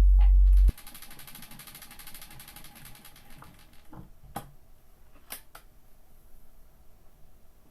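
A loud low hum that cuts off under a second in, then the fast, even clicking of a Victrola VV1-90 wind-up phonograph's mechanism for a couple of seconds, a few separate sharp clicks, and a faint steady hiss of a steel needle running in a 78 rpm record's lead-in groove before the music starts.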